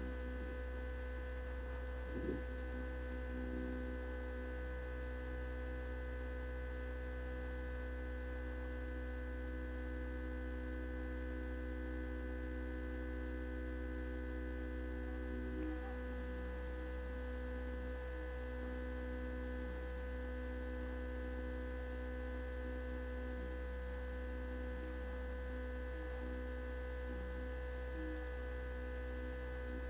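A steady electrical-sounding hum made of several held tones over a low drone, with a brief click about two seconds in.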